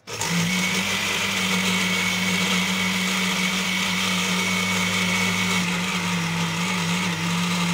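Countertop jug blender switched on, its motor starting abruptly and then running at one steady speed as it whirls liquid egg-and-sugar cake batter.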